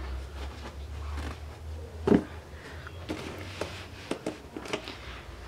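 Faint handling noise, light rustles and scattered clicks with one sharper tap about two seconds in, over a steady low hum.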